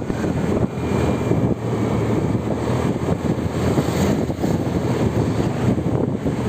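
Steady vehicle and road noise, with some wind on the microphone.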